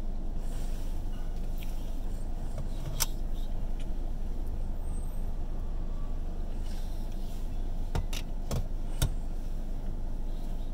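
Steady low rumble of a car idling while stopped in traffic, heard from inside the cabin. A few sharp clicks cut through it, one about three seconds in and three close together near the end.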